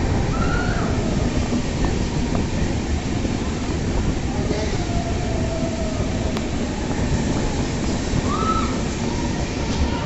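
Passenger train running through a rock tunnel: a steady heavy rumble of wheels on rails, with faint wheel squeals about half a second in, midway and near the end.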